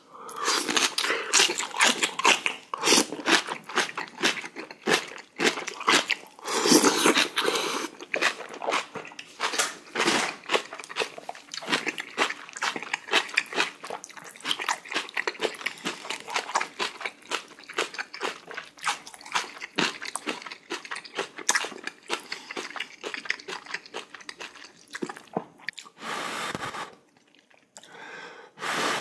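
A person crunching and chewing a big mouthful of Korean kimchi close to the microphone, with crisp irregular crackles and wet mouth sounds. The eating goes quiet for a moment near the end.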